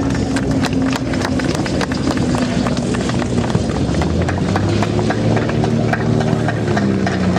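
Grumman F8F Bearcat's Pratt & Whitney R-2800 radial engine throttled back as the aircraft touches down and rolls out on grass, its exhaust popping and crackling irregularly. The engine note shifts in pitch in the second half.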